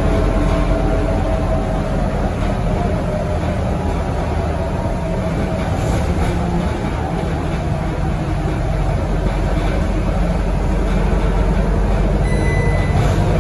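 Cabin noise of a Scania K230UB single-deck bus cruising at speed: the rear-mounted diesel's steady drone mixed with tyre and road noise on a wet road, steady throughout. A brief high beep sounds near the end.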